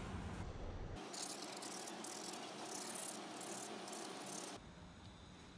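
A small wooden block being hand-sanded with sandpaper: a rhythmic rasping of back-and-forth strokes, about two a second, which fades about a second before the end.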